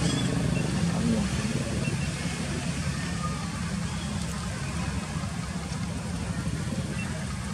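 Steady low rumble, with faint voices in the first second or so.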